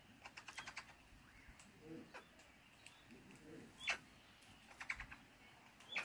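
Faint runs of small, sharp clicks and cracks: a red-winged parrot's beak working the husks of a sunflower seed block. One louder sharp click comes a little before 4 s, and another quick cluster comes near the end.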